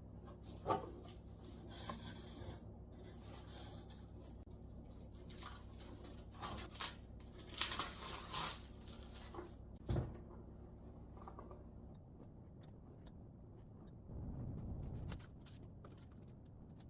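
Hands handling and opening a book's packaging: rustling and scraping with scattered clicks and a few sharper knocks, the loudest a cluster about eight seconds in and a knock about ten seconds in. A low steady hum underneath stops about twelve seconds in.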